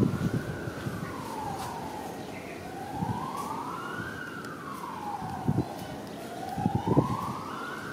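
A siren wailing slowly, its pitch rising and falling in smooth sweeps a little under four seconds apart, with a few low thumps.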